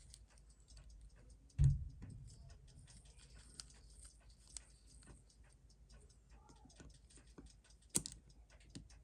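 Small irregular clicks and taps of watchmaker's hand tools working on a mechanical watch movement, with a dull thump about one and a half seconds in and a sharper click near the end.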